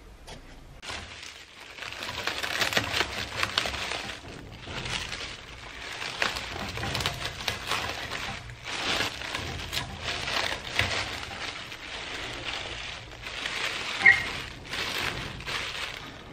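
Clear plastic film rustling and crinkling in uneven surges as it is wrapped around a toy truck's painted metal bed to mask it. A short sharp squeak stands out about fourteen seconds in.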